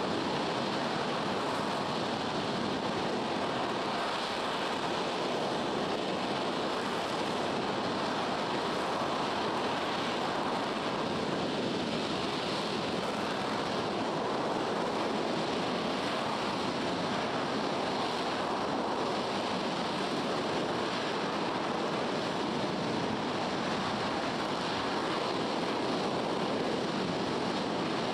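RS-25 rocket engine firing on a test stand: a steady, unbroken rushing noise that holds the same level throughout.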